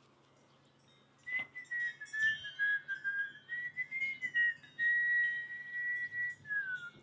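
A person whistling a meandering tune, starting about a second in, wavering up and down in pitch and sliding down at the end.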